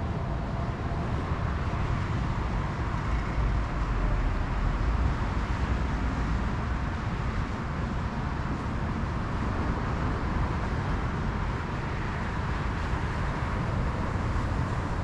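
Steady rush of sea waves breaking on a pebble beach, with a low rumble underneath.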